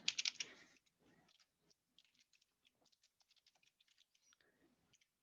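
Computer keyboard typing: faint, irregular key clicks, with a brief louder flurry in the first second.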